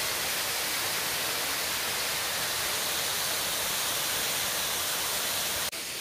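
Waterfall rushing in a steady, even roar of falling water. Just before the end it cuts off abruptly and gives way to a quieter, softer hiss.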